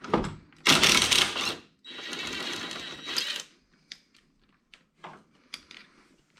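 A seatbelt being unlatched, its webbing sliding and reeling back into the retractor in a loud rasping rush, followed by a few light clicks and knocks.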